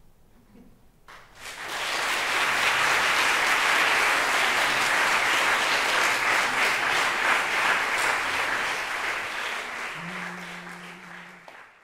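Audience applauding: after a brief hush, applause breaks out about a second in, holds steady, then fades near the end and cuts off.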